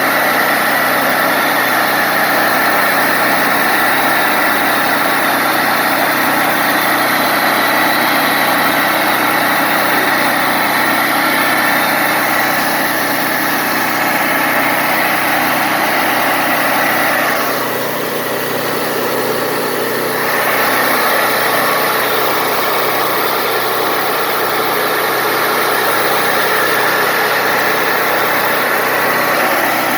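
Wood-Mizer LT40 Wide portable band sawmill running steadily and loudly. Its higher sound drops for about three seconds two-thirds of the way through, then comes back.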